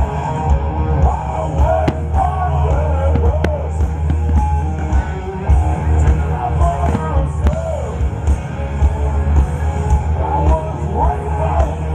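Rock music with singing and guitar over a steady heavy bass.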